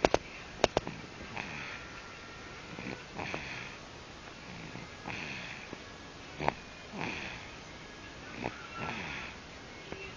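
A young child snoring in sleep: five noisy breaths, about one every two seconds, each sliding down in pitch. A few sharp clicks come in the first second and another about six and a half seconds in.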